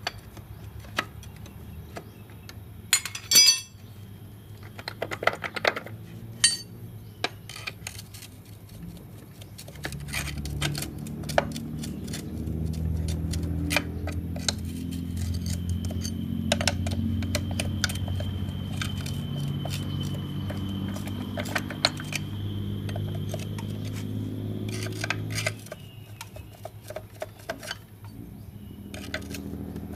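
Metal clicks and clinks as a steel pry bar levers at the final-drive gear-case cover of a Yamaha Mio scooter, gently working it loose. A low steady hum with a faint high whine runs underneath from about ten seconds in until about twenty-five seconds in.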